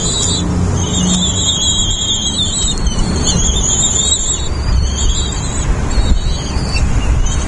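Nestling birds begging from the nest, a series of high, drawn-out squealing calls each lasting about a second, over a heavy low rumble of wind on the microphone.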